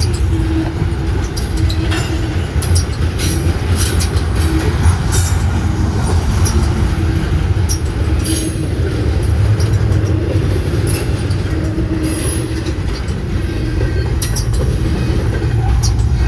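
Norfolk Southern intermodal freight train rolling past close by. Steel wheels rumble steadily on the rails, with scattered sharp clanks and short high squeaks from the wheels and cars.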